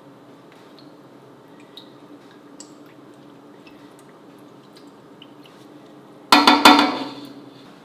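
Small drips and light clinks over a low steady hum, then a sudden loud splashing clatter of water and a vessel about six seconds in that dies away over about a second.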